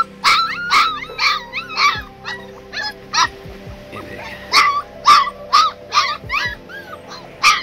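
A litter of Bhotia puppies barking in short, high-pitched calls, many in quick succession, with a brief lull about halfway through.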